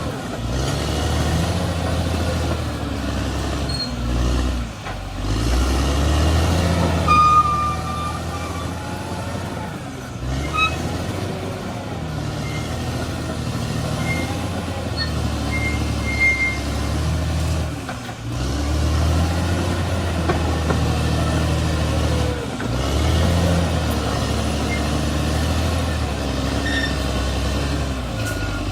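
Heavy diesel earthmoving machinery, a bulldozer at work, running with a deep engine rumble that swells and eases. A few short high-pitched tones sound over it.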